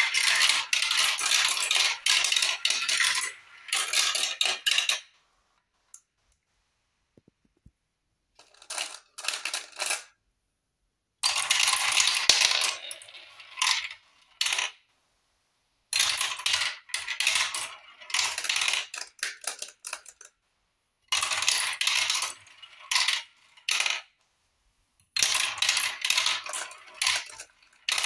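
Glass marbles rolling and clattering through a plastic marble run's tubes and trays, coming in bursts of a few seconds with short silent gaps between them.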